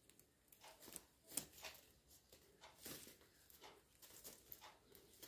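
Faint, irregular rustles and light clicks of plastic craft wire being pulled through and wrapped around a loop by hand, the loudest about a second and a half in.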